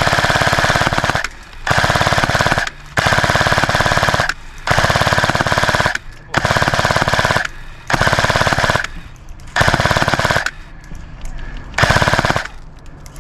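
Airsoft gun firing on full auto in about eight bursts of roughly a second each, a fast, even rattle of shots.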